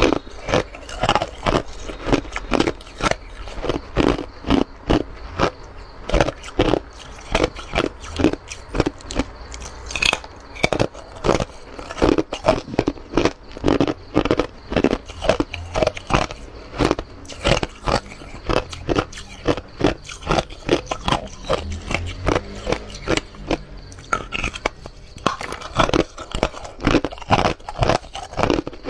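Hard ice being bitten and chewed close to a clip-on microphone: a steady run of sharp crunches, two or three a second.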